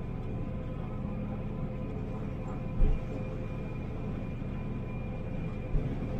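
Combine harvester heard from inside its cab while harvesting standing corn: a steady machine drone with a few thin, high, steady whining tones. A brief thump about three seconds in.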